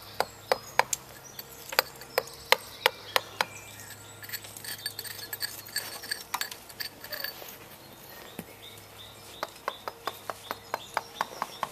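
Sharp clinking taps of a hammer striking metal against the sandstone, in irregular runs. The taps come often at first, thin out in the middle, then pick up again at about three a second near the end.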